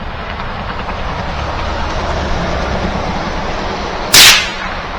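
One sharp, loud shot from a Savage .22 LR rifle about four seconds in, with a short trailing echo.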